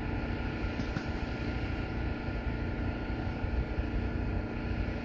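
Wind buffeting the microphone: a steady low rumble that swells and dips with the gusts, with a faint steady hum underneath.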